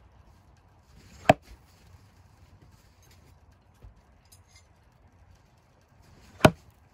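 Two metal throwing knives thrown into a cut wooden log, each hitting with a single sharp impact and sticking. The first strikes about a second in and the second about five seconds later.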